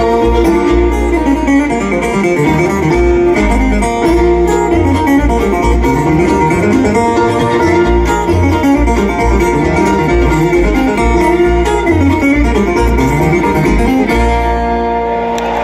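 Bluegrass band playing an instrumental passage: fast picked acoustic guitar and banjo over bass notes, settling into a held chord near the end.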